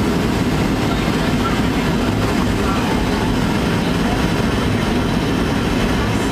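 Steady cabin noise of an airplane in flight, heard inside the passenger cabin: a loud, even rumble of engines and rushing air.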